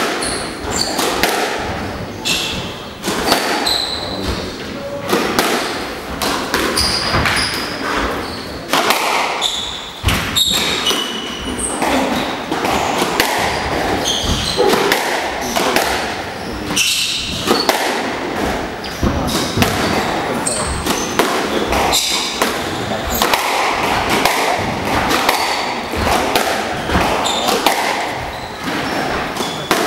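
Squash rally: the ball strikes off rackets and the court walls in a quick irregular series of sharp knocks and thuds, with short high squeaks from the players' shoes on the hardwood floor.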